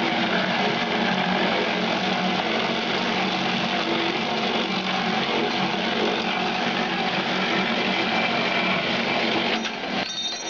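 Electric meatball dough machine running steadily as it mixes beef meatball dough, a constant motor hum that dips briefly near the end.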